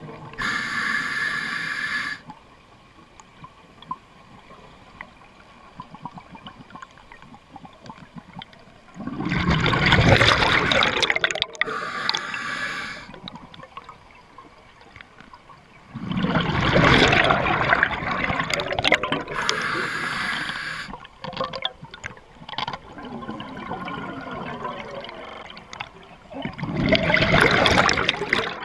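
A scuba diver breathing underwater through an open-circuit regulator, with long pauses between breaths. Each inhalation is a short hiss through the demand valve, near the start, about 12 s in and about 19 s in. Each exhalation is a rushing burst of bubbles, about 9 s, 16 s and 27 s in.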